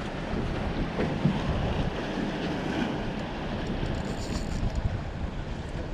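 Steady wind rumbling on the microphone, with the wash of water around a boat underneath.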